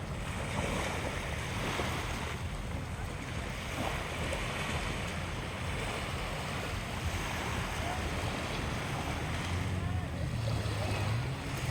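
Steady wash of sea waves mixed with wind rumbling on the microphone.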